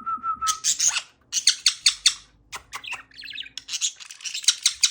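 A pet bird calling. It opens with a brief warbling whistle, then gives a long run of short, harsh, raspy squawks, about three or four a second, with a short pause about halfway.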